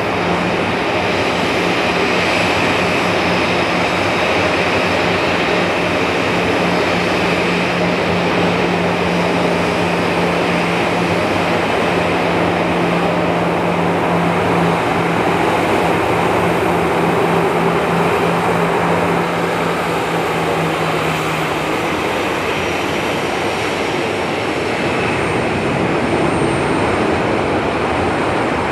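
Boeing 737-800's CFM56 turbofan engines running at taxi power as the airliner moves off after pushback, a steady jet engine noise. A low steady hum runs beneath it and stops about three-quarters of the way through.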